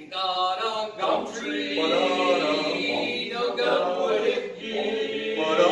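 A male quartet singing a cappella in harmony, in short phrases with brief breaks between them.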